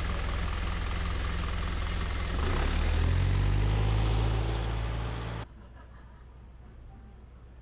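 Bus engine running steadily at low revs, then revving up about two and a half seconds in as the bus pulls away. The sound cuts off abruptly about five seconds in, leaving a much quieter background with a faint steady high whine.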